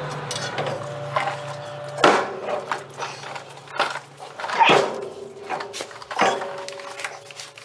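SCS drop box (transfer case) knocking and scraping against its steel cradle as it is wrestled free and lowered by hand, with sharp knocks about two seconds in and again near five and six seconds. A steady low hum runs under the first half.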